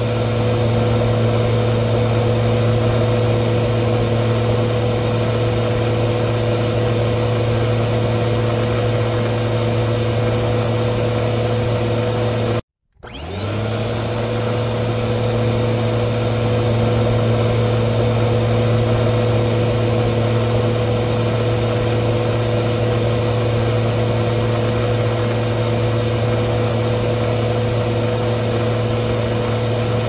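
Vacuum cleaner running steadily: a low motor hum with a high whine on top. About 13 seconds in it cuts out abruptly for a moment, then comes back with the whine rising as the motor spins up again.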